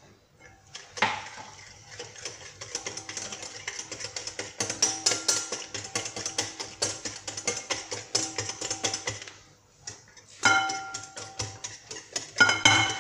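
Wire balloon whisk beating eggs and sugar in a glass mixing bowl: a fast, steady clicking of the wires against the glass, with the bowl ringing faintly. The beating pauses briefly, then a couple of louder knocks against the bowl ring out near the end.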